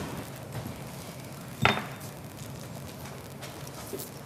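Metal pot lid set back onto a steel cooking pot: one ringing clink about a second and a half in, then a faint tap near the end.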